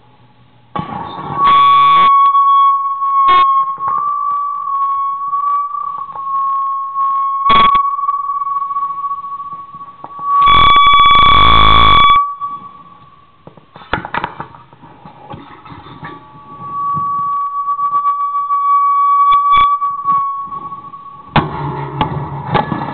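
Homemade amplified noise box of springs, bolts and wire strings on an aluminium plate, played as an electronic instrument. A high whining tone that wavers slightly is held for long stretches. It is broken by sharp clicks, two loud distorted blasts (one near the start and a longer one about halfway) and a rattling clatter near the end.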